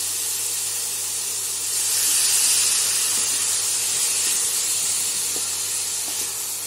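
Chopped vegetables sizzling and hissing in a hot oiled kadai as they are stir-fried with a wooden spatula; the hiss swells for a second or two about two seconds in.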